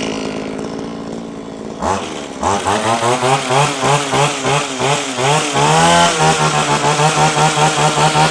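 Stihl FS 3001 brush cutter's two-stroke engine idling, then revved up about two seconds in. The throttle is worked up and down repeatedly so the engine speed rises and falls, loudest near the end.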